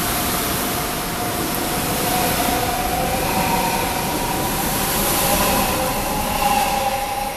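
Deutsche Bahn ICE high-speed electric train running past along the platform: a steady rush of wheel and air noise, with a faint whine that slowly rises in pitch.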